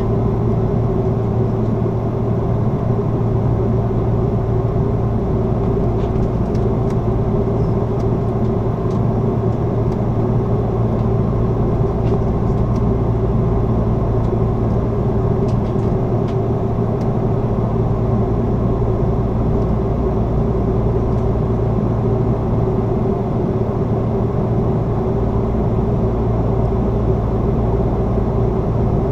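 Steady cabin noise inside an Airbus A330-300 in its climb after takeoff: the drone of its Rolls-Royce Trent 700 engines at climb power and the rush of air past the fuselage, with a constant low hum underneath.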